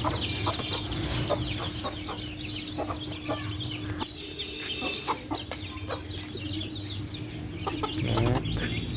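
A flock of young broiler chickens feeding: many overlapping high peeps and clucks, with frequent short sharp ticks.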